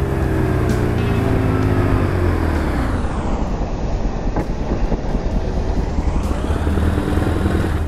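BMW R1150 RT's air-cooled flat-twin boxer engine as the bike rides up and slows, its pitch falling over the first few seconds, then running steadily at idle once the bike has stopped.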